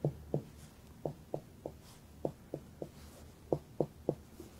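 Clinical finger-on-finger percussion of a man's abdomen: about a dozen light taps in groups of two to four, roughly three a second. They give normal percussion notes, higher-pitched and tympanitic over the stomach and duller over the rest of the belly.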